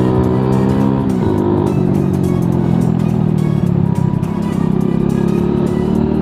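Hero Splendor motorcycle's single-cylinder engine running through a modified exhaust under way, with a 'bum bum bum' exhaust note; about a second in the revs drop as the throttle closes, then it runs steady at lower revs.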